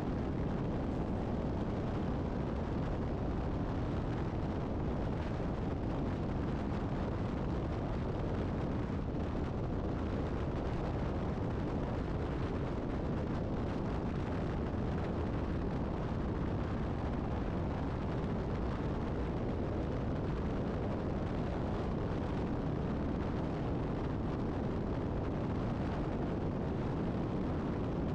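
Steady low rumble of wind and tyre noise at highway speed, from a vehicle travelling alongside a semi-truck pulling a tanker trailer. No distinct engine note stands out.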